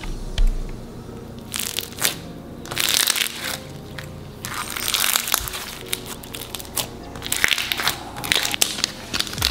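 Beaded clear slime crunching and crackling as a hand presses and squeezes it, in several bursts of tiny pops. Background music plays underneath.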